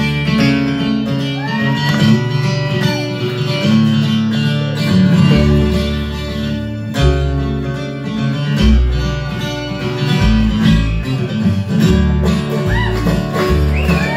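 Bluegrass band playing live: acoustic guitar, banjo, fiddle and upright bass.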